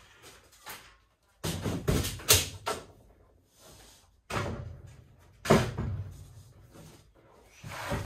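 Metal knocks and clunks as a new Epple BS 125 GS metal band saw is handled and worked on a workbench. They come in two short bursts of clatter, with a sharp knock in each about two and five and a half seconds in, and more starting near the end.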